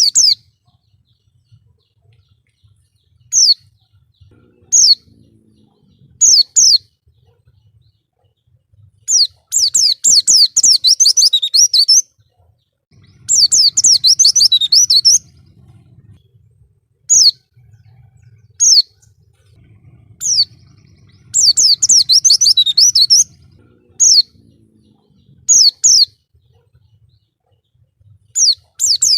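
White-eye (pleci) singing: single high, downward-slurred notes every second or two, alternating with three runs of rapid high twittering that each last two to three seconds.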